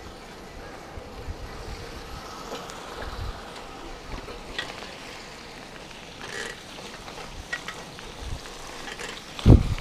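Riding noise on a bike ride: wind buffeting the microphone with scattered light clicks and rattles, and one sudden low thump near the end, the loudest sound.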